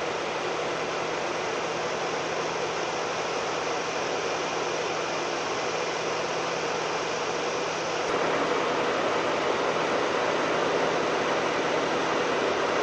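Steady vehicle hum with an even hiss, stepping up a little in level about eight seconds in.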